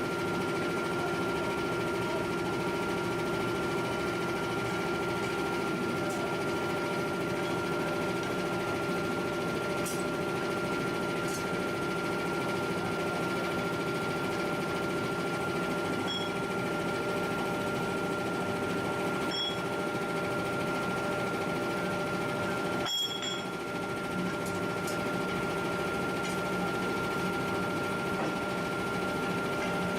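Steady mechanical drone of heavy forge-shop machinery, with a constant high whine over a low hum. A few faint clinks occur, and the drone dips briefly about three-quarters of the way through.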